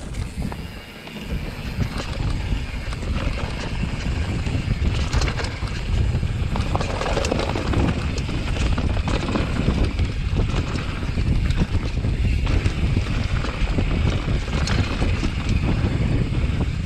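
Mountain bike ridden fast down a rocky trail: a deep wind rumble on the microphone, with tyres rattling over rocks and scattered sharp knocks from the bike. The noise builds over the first couple of seconds as the bike gets going.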